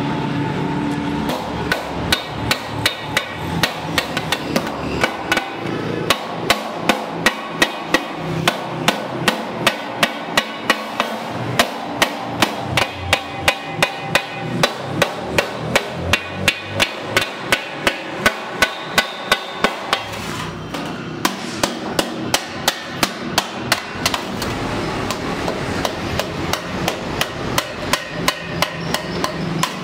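Wooden mallet beating galvanized sheet metal over the edge of a steel rail to fold it, with quick, regular blows about two to three a second that thin out after about twenty seconds.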